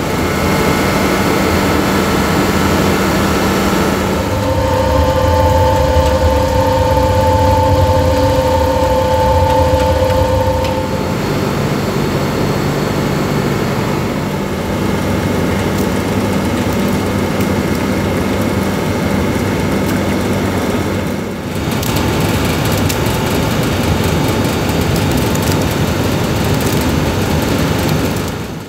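Ziegra UBE 1500 flake ice machine running: a steady mechanical hum from its refrigeration unit. A pair of steady whining tones and a heavier low hum come in for several seconds about a quarter of the way through, and the sound dips briefly about three-quarters through.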